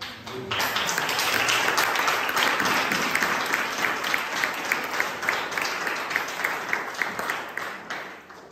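Audience applause, starting about half a second in and dying away near the end, with a steady beat of sharp claps through the middle.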